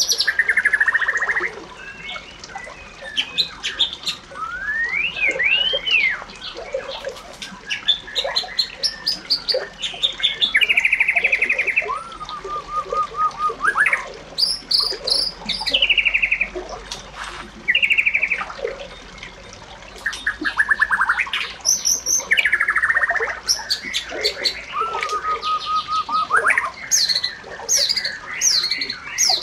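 Birds singing and calling in a busy, almost unbroken mix of short chirps, rapid trills and rising and falling whistles.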